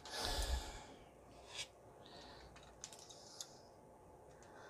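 Hard plastic action-figure and upgrade-kit parts being handled: a brief rub and thump of hands on the figure at the start, then a few faint, separate clicks of plastic pieces.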